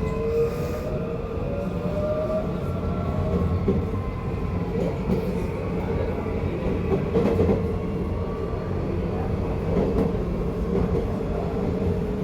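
Série 8500 electric train running between stations, heard from inside a car: steady running noise, with the traction motors' whine gliding upward near the start and a few short wheel-on-rail clicks about midway.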